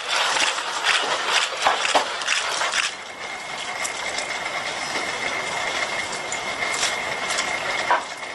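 HRP-4 humanoid robot walking, its feet and joints clicking and clattering for about three seconds. It then stands still, with a steady high whine and hiss from its joint motors.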